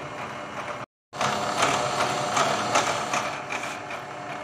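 Milling machine spindle turning an involute gear cutter as it cuts spline teeth into a small shaft at a low feed rate: a steady mechanical whir with a steady tone and scattered clicks. The sound cuts out for a moment about a second in.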